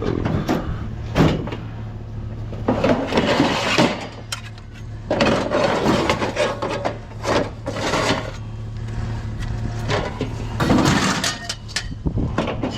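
Scrap metal pieces being handled and dropped: irregular clanks, knocks and clattering, over a steady low hum.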